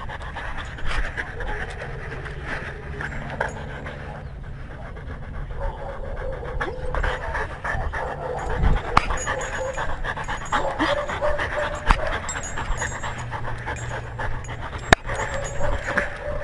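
A dog panting steadily and rapidly, picked up close by a camera on its own collar, with scattered clicks and rattles mixed in.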